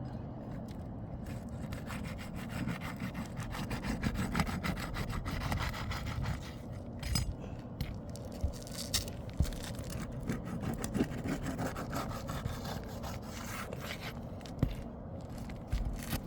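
Rough, repeated scraping and rasping of asphalt shingles being worked loose with a pry tool, with a few sharper knocks.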